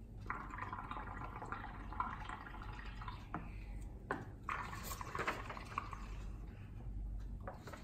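Bubbling gurgle of air blown through drinking straws into cups of soapy bubble solution mixed with paint, foaming up. It comes in two spells of about three seconds each, with a short break a little past halfway.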